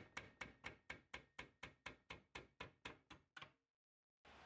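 Small hammer tapping rapidly on the cast-iron body of a portable hibachi grill, about four light metallic strikes a second, stopping about three and a half seconds in; a faint steady hiss follows near the end.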